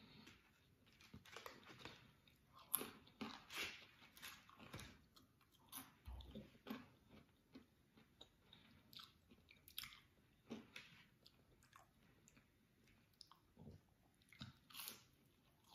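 A person chewing chicken nuggets: faint, irregular crunchy bites and chews in bouts with short pauses.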